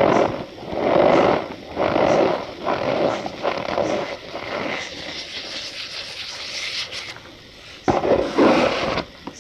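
Packed cornstarch being squeezed and crushed by hand, giving a squeaky crunch about once a second. It breaks into a few seconds of fine, continuous crumbling, then two more hard squeezes near the end.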